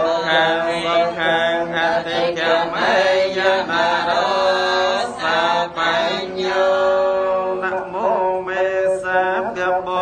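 Theravada Buddhist monks chanting together in a slow, steady recitation, with long held notes sliding from one pitch to the next.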